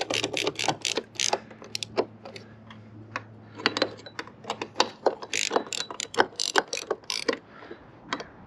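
Ratchet socket wrench clicking in quick runs as the Torx bolts of a roof rack crossbar foot are run down and snugged. One short run comes first, then a pause, then a longer run near the middle.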